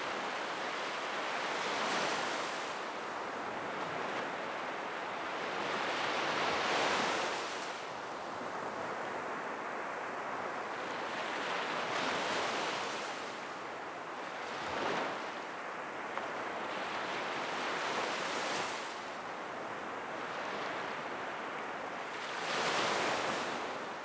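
Black Sea surf breaking on a sandy beach: a steady wash of waves that swells every few seconds as each one comes in.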